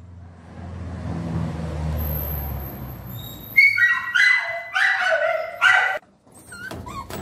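Puppies whimpering and yelping: about four high calls in quick succession from about halfway in, each falling in pitch. A low rumble runs underneath during the first few seconds.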